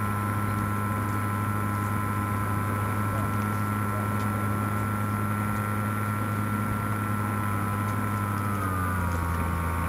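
Skywalker FPV plane's electric motor and propeller running steadily, heard from the onboard camera. About 8.5 seconds in the sound changes as the motor suddenly takes up speed: the failsafe has set 55% throttle after the radio link was lost.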